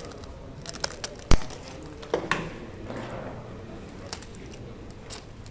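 Hand work on an olive bonsai trunk: scattered small clicks and crinkling of tools and material being handled, with one sharp knock a little over a second in.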